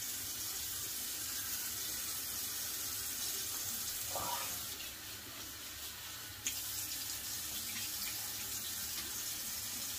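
Bathroom sink tap running steadily into the basin, with a single sharp knock about six and a half seconds in.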